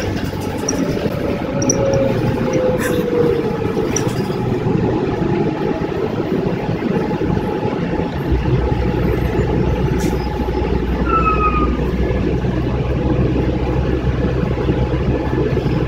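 City bus ride heard from inside the cabin: steady engine and road noise, with a falling whine in the first few seconds. About eight seconds in, a heavier, deeper steady rumble sets in.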